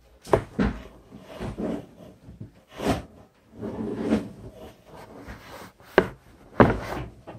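Irregular knocks and rustling of things being handled, with a sharper thump about three seconds in and two more near the end, the last the loudest.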